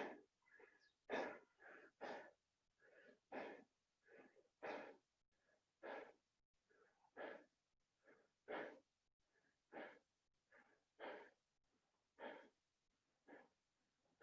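A person breathing hard from the exertion of burpees: a short, faint breath out about every second and a quarter, a dozen in all.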